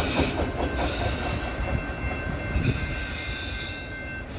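Freight cars of a long CSX manifest train rolling past with a steady low rumble, steel wheels squealing thinly against the rail. The squeal fades out near the end.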